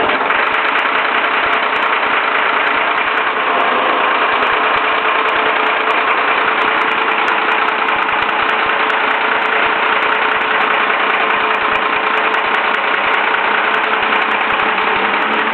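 Leyland National single-decker bus's diesel engine, a replacement unit newly fitted, running steadily.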